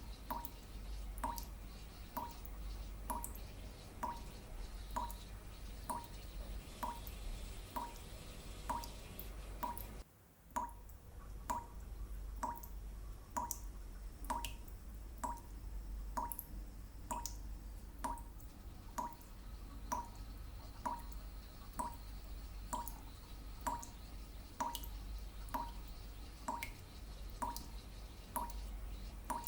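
Water dripping in a steady rhythm, about two drops a second, each a short plink. The dripping breaks off briefly about ten seconds in, then resumes.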